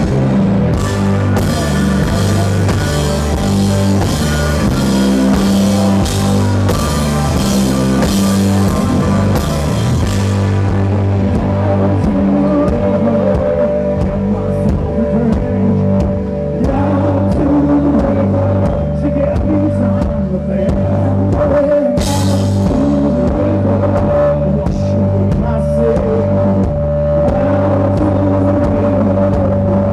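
Blues-rock band playing live through a PA: electric guitar over a driving drum kit, with heavy cymbal crashes for the first ten seconds or so, then a long held high note over the groove.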